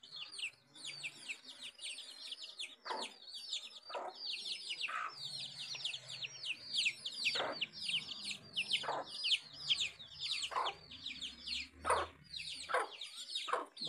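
Domestic chicks peeping without pause, many short high falling peeps overlapping, with the mother hen's low soft clucks and a dozen or so sharp taps, likely beaks pecking onion bits off the concrete.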